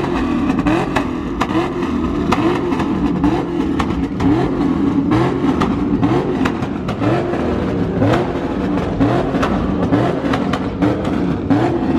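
A car engine revved again and again in quick rises, about one to one and a half blips a second, loud and close.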